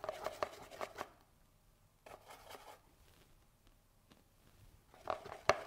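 Paintbrush dabbing and scraping through paint on a palette while mixing a colour: clusters of short scratchy taps in the first second, again around two seconds in, and near the end, with quiet gaps between.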